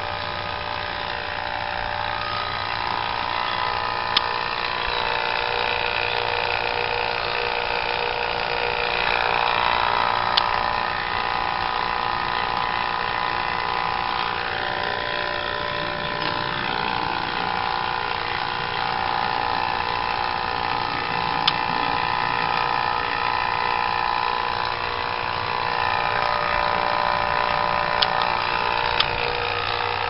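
HVAC vacuum pump running steadily with a constant motor hum, pulling a vacuum on a newly installed air-conditioning line set. A few brief ticks come through over it.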